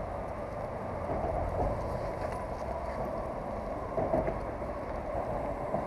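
Steady traffic noise from the road bridge overhead, a continuous rumble of passing vehicles, with a few small knocks of handling about four seconds in.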